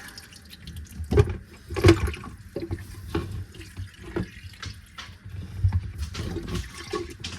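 Dirty water being dumped out of a disconnected dishwasher drain hose, splashing and trickling, with a few knocks from handling the hose and the plumbing under the sink.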